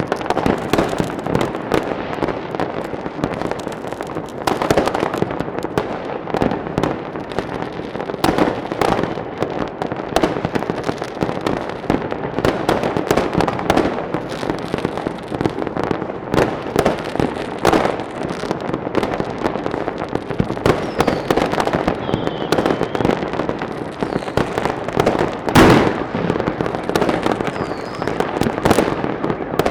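Fireworks going off in a dense, continuous crackle of many overlapping bangs and pops, with one louder bang about 25 seconds in.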